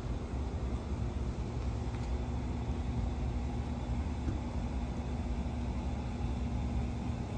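Steady low outdoor rumble with a faint steady hum over it.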